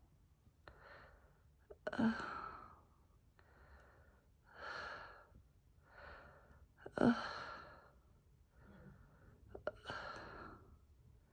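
A woman's gasping, sighing breaths building toward a sneeze that doesn't come: the catching inhales of a sneeze held back. Two sharp catches of breath come about two and seven seconds in, with softer breaths between.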